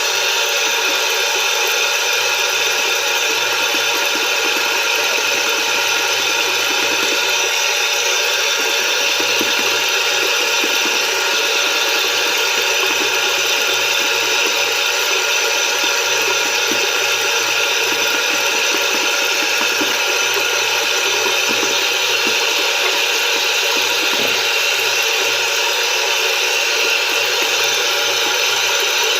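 Shaving brush (33 mm comfort knot) swirling over a hard, dry soap puck, a continuous steady swishing as the lather is built up.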